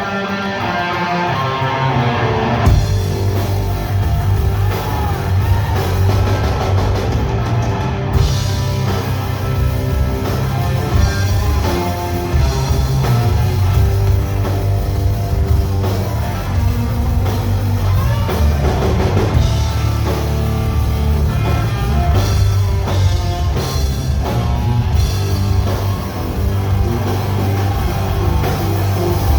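Rock band playing electric guitar, bass and drum kit. A lighter guitar part opens, and the full band with bass and drums comes in about three seconds in and plays on steadily.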